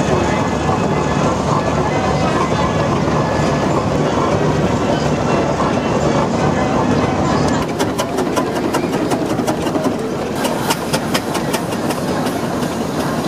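Steady, dense mechanical running noise with voices mixed in; from about eight seconds in, a rapid run of sharp clicks joins it.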